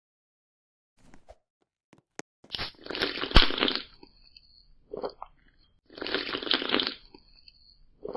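Crunching in bursts, as of something crunchy being bitten and chewed: two long bursts of about a second each, starting about two and a half and six seconds in, with a short crunch between them and another at the end.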